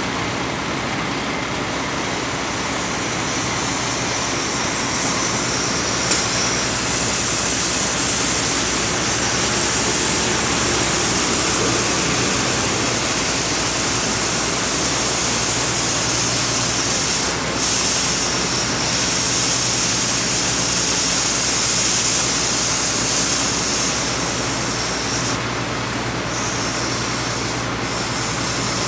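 Oxy-fuel cutting torch hissing steadily as it cuts through structural steel, over a steady low engine hum. The hiss swells about six seconds in, dips for a moment past halfway and eases off near the end.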